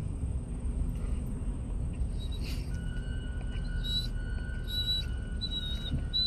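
A dog whining in short, high squeaks, several in the last few seconds, about one every three-quarters of a second. Under it is the low, steady hum of a vehicle idling, heard inside the cab.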